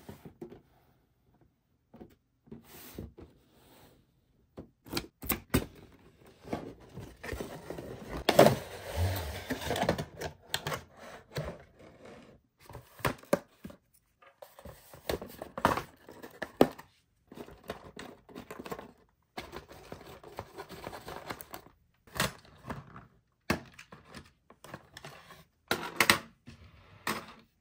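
Cardboard box and plastic packaging of a toy remote-control car being opened and handled: a string of clicks, knocks and scrapes, with a longer stretch of scraping about eight to ten seconds in.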